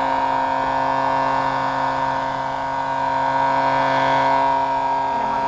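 Damaged handheld electric hair dryer running steadily and making a lot of noise: a steady whine of several held pitches over a hiss.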